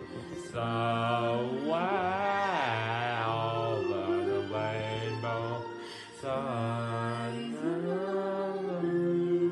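A wordless male voice chanting: long held low notes, several in turn, with slides up and down between them.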